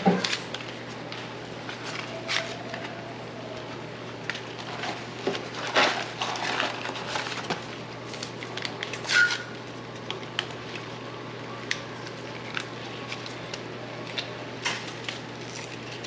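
Foil wrappers of beef bouillon cubes crinkling and crackling in short, irregular bursts as they are unwrapped, with scattered clicks and clinks of utensils on pots. A steady low hum runs underneath.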